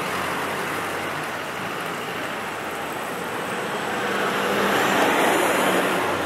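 Road traffic on a city street: engine and tyre noise of passing vehicles, with one vehicle passing close, loudest about five seconds in.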